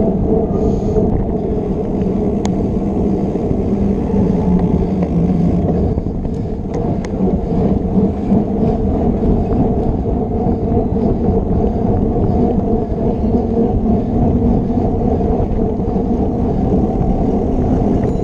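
Steady low rumble of wind and tyre noise picked up by a camera on a mountain biker riding along a paved path, with a few faint clicks.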